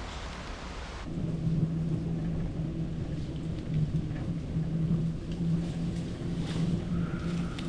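Wind rumble on the microphone of a camera riding on a moving bicycle, with tyre noise on asphalt and a steady low hum. It starts abruptly about a second in, after a quieter outdoor background.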